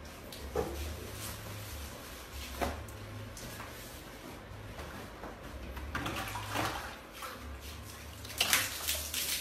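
Water poured over a person's head and body, splashing in a few rushing bursts, loudest about eight and a half seconds in. A low steady hum runs underneath.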